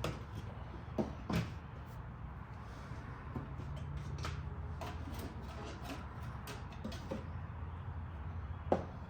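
Scattered light knocks and clicks of parts being handled, over a steady low hum; the sharpest knock comes near the end.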